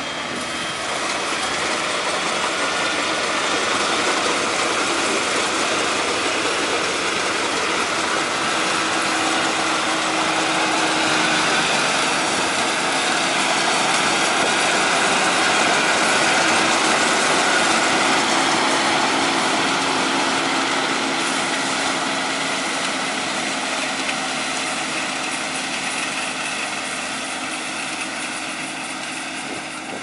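Kubota DC-35 rice combine harvester's diesel engine and machinery running as it cuts rice. The steady mechanical noise grows louder as the machine passes close, is loudest about halfway, then fades as it moves away.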